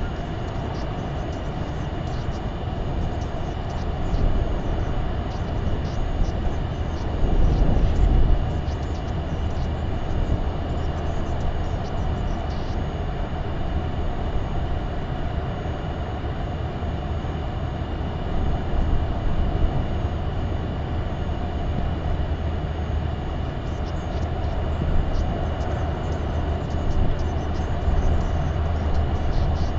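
Steady low rumble and hiss of wind on an outdoor microphone, with a stronger gust about eight seconds in.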